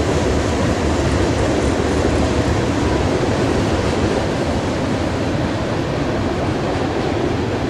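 A freight train's cars rolling past, a steady, loud rumble of steel wheels on the rails.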